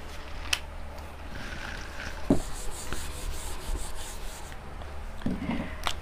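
Marker pen drawing on a white board: a scratchy rubbing for a few seconds in the middle, with a few light taps of the pen.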